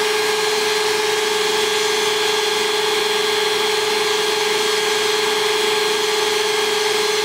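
Power drills running steadily under load with twist drill bits cutting: a constant motor whine over an even hiss.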